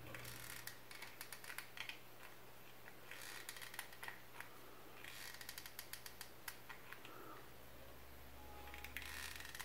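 Faint clicking and ratcheting of a small hot glue gun's trigger being squeezed to feed glue, in clusters of quick ticks, while a wooden chopstick is turned under the nozzle.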